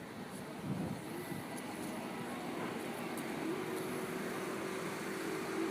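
City street ambience: a steady wash of traffic noise, with a low steady hum coming in about halfway through.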